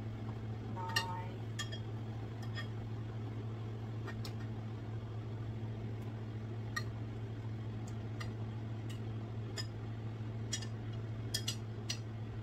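A metal utensil clinking against a glass bowl and a pan as cooked meatballs are lifted out of their fat into the bowl. There is one ringing glass clink about a second in, scattered light clicks after it, and a quick run of clicks near the end, over a steady low hum.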